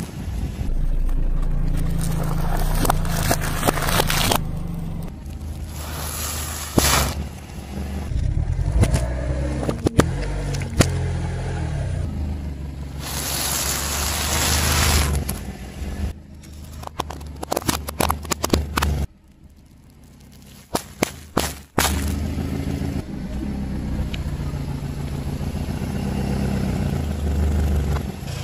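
Car tyre rolling slowly over objects on asphalt, crunching and crackling them, with many sharp cracks and pops, over the car's engine running at low speed. There is a short quieter pause a little before two-thirds of the way through.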